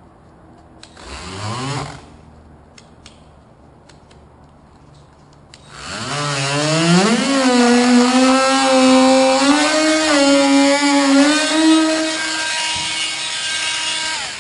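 An electric power tool's motor is run briefly with a rising pitch about a second in. Then from about six seconds it spins up and runs steadily, its pitch wavering as it works, and it winds down near the end.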